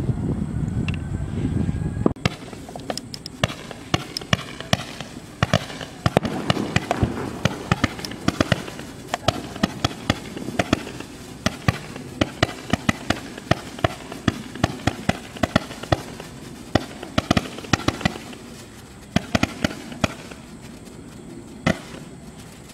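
80-shot firework tubes firing single stars one after another. A short dense low rumble at the start gives way to a steady run of sharp pops, a few a second, which thins out near the end.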